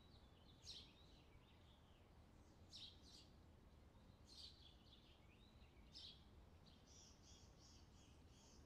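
Faint bird chirps: short high calls every second or so, then from about seven seconds in a quick run of evenly repeated chirps, several a second.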